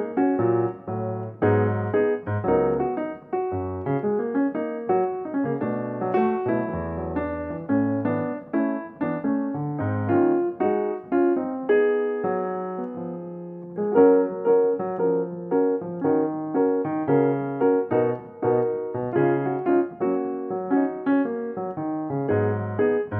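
Background piano music, a steady run of notes over a lower bass line.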